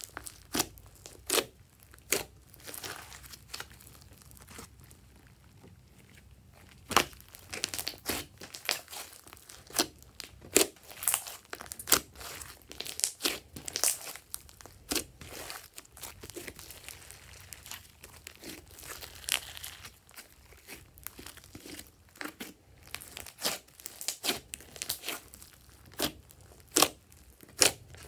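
Glossy slime being squeezed, stretched and kneaded by hand, giving irregular sharp pops and crackles, with a quieter spell around four to six seconds in.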